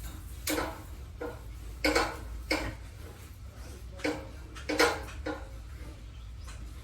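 A series of about seven sharp clanks, irregularly spaced, each with a short ring, like metal objects knocking together.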